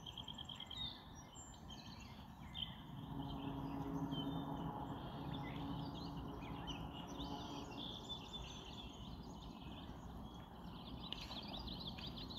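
Outdoor ambience of several birds chirping and singing. A faint low hum swells in about three seconds in and fades away over the next several seconds.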